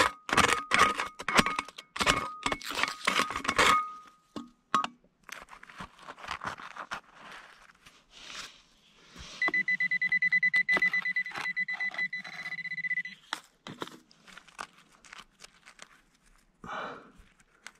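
A folding shovel digging into stony gravel: quick scraping strikes on stones over a steady electronic tone for the first few seconds. Pebbles then clatter as they are moved by hand. Around the middle a metal-detecting pinpointer gives a fast pulsing beep with a low buzz under it for about three and a half seconds, signalling metal close by in the hole.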